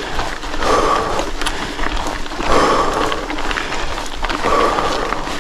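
A mountain biker panting hard on a steep climb: three loud, heavy exhalations about two seconds apart, with short clicks and rattles from the bike.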